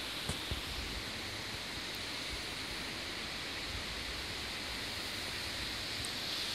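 Steady outdoor rushing hiss, with a few low thumps about half a second in.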